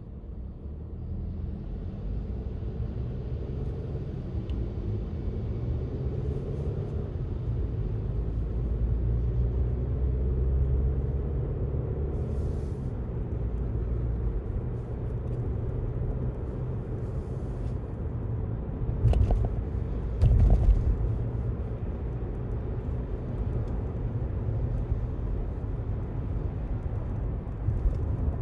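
Steady low rumble of road traffic passing on a busy street. Two louder knocks come close together about two-thirds of the way through.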